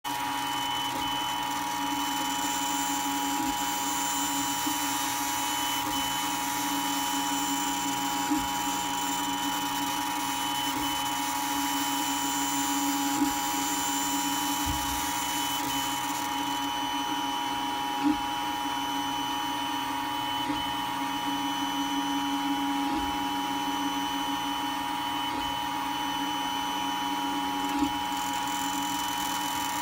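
MakerGear M2 3D printer running, its motors and cooling fans giving a steady whine. Its extruder makes an intermittent rattle, heard as short sharp clicks about every five seconds: a fault in the extruder.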